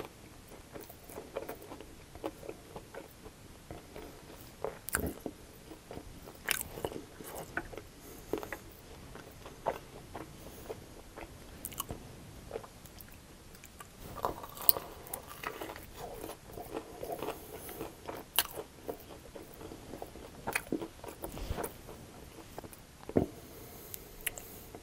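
Close-up chewing and crunching of crispy breaded chicken wings, with repeated sharp, irregular crunches and wet chewing in between.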